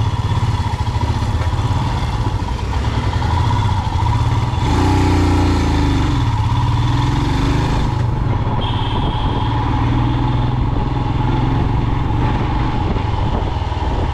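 A road vehicle's engine running on the move, its pitch rising and falling between about five and eight seconds in, over a steady low rumble.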